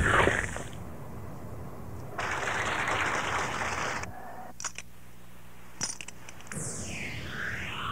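Audio-drama sound effects with no dialogue: a loud ringing tail fades in the first second, then a two-second rush of noise and two sharp metallic clinks. A swooping synthesizer line begins near the end.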